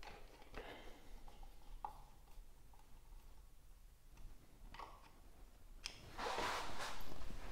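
Faint clicks and scrapes of a small screwdriver tip working at the little plastic screw covers on a socket faceplate, prising them out. Near the end comes a louder rustling scrape lasting about a second.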